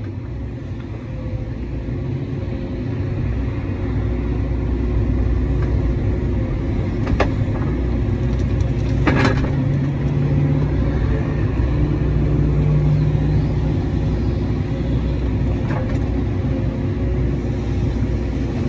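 Caterpillar 312 excavator's diesel engine and hydraulics working under load, heard from inside the cab as the bucket digs and moves dirt. The engine drone builds over the first few seconds and stays steady, with a couple of sharp knocks about seven and nine seconds in.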